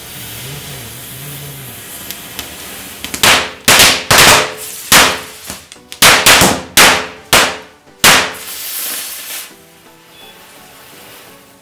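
Burning matchstick heads fizzing and hissing, then small Diwali firecrackers going off: about ten sharp bangs in quick, irregular succession over some five seconds, ending in a fading hiss.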